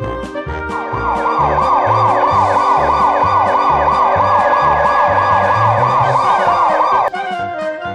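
Emergency-vehicle siren in a fast yelp, sweeping up and down several times a second; it starts about a second in and cuts off suddenly near the end. Light background music with a steady beat plays underneath.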